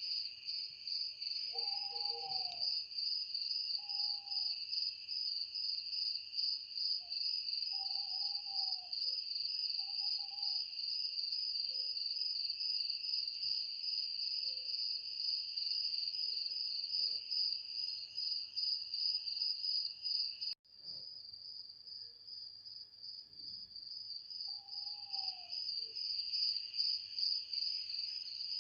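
Night insect chorus of crickets, a steady fast-pulsing high trill, with a bird's short falling calls now and then. About twenty seconds in the sound breaks off for an instant and resumes slightly quieter.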